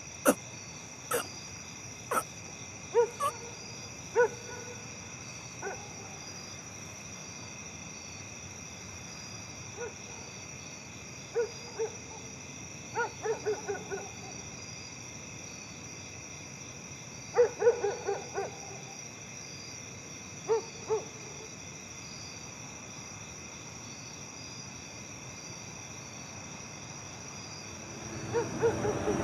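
Night ambience: an owl hooting in short calls that come in scattered clusters, over a steady high-pitched background.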